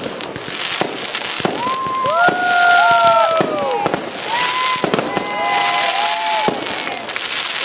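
Fireworks cake firing: rapid pops and dense crackle, with several whistling tones that rise, hold and fall about two seconds in and again near five to six seconds in.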